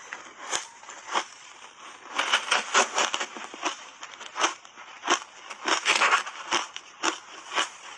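Shaved ice coated in matcha powder being chewed close to a clip-on microphone: a run of sharp crunches and crackles, thickest about two seconds in and again around six seconds.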